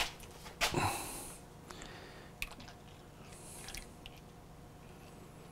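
Old fork oil draining out of an upturned motorcycle fork tube into a plastic measuring jug, gurgling and hissing as air gets in about a second in, with a few light clicks and a thin trickle that turns faint in the second half.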